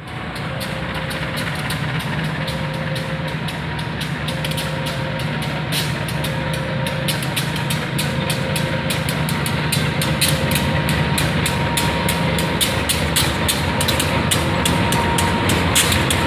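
CC203 diesel-electric locomotive running at low speed past close by, its diesel engine droning steadily and growing a little louder as it draws level. Rapid clicking gathers in the second half as the locomotive passes, and a mid-pitched tone beeps on and off about once a second through the first half.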